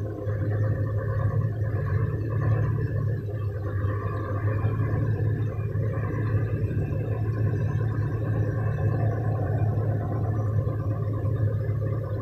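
Truck diesel engine running steadily, heard from inside the cab, as it builds up air brake pressure.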